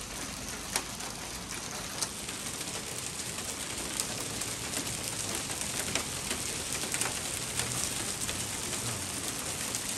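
Hail and heavy rain falling on pavement and parked cars: a steady hiss with scattered sharp ticks of hailstones striking, building gradually.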